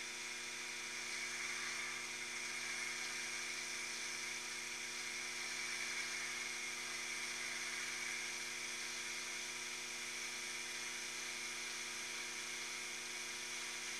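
Taig mini-lathe running at a steady speed during a light profiling cut on a small taper pin: an even motor whine with hiss, unchanging throughout.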